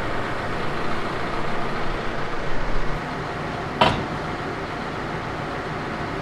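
Tractor engine idling steadily, with one sharp clank a little under four seconds in.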